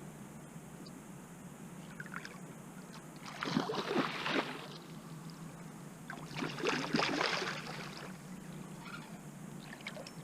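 Water splashing in two bouts, about three seconds apart: a large hooked carp thrashing at the surface beside the landing net.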